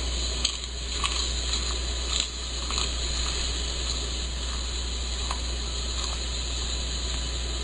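Steady low hum and hiss with a few faint, short clicks scattered through it.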